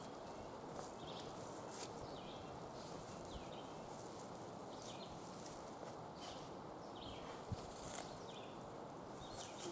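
Quiet outdoor ambience: a steady low hiss with short high chirps repeating about once a second.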